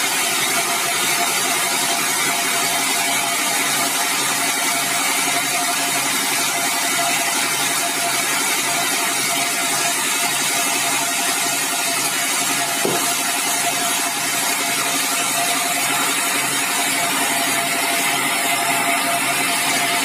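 Sawmill running steadily under load, its saw and drive engine making a continuous loud mechanical noise as a bengkirai log on the carriage is sawn into boards. One short knock about thirteen seconds in.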